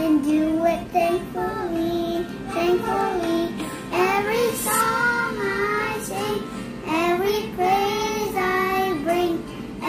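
A young boy singing a tune, holding notes and sliding between pitches, with short pauses between phrases.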